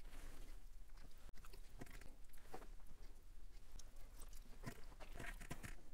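Faint chewing of a mouthful of MRE beef taco, the beef filling and rice wrapped in a tortilla, with irregular small clicks and a few louder ones near the end.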